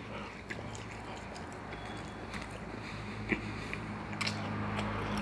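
A person chewing a bite of fried chicken sandwich, with small soft mouth clicks and one sharper click a little after three seconds in, over a steady low hum.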